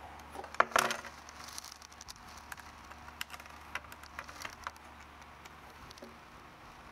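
Handling clicks and taps of a T-handle hex key, small screws and an ABS plastic plate on a wooden tabletop, with a sharp clatter just under a second in. Scattered light clicks follow, dying away after about five seconds.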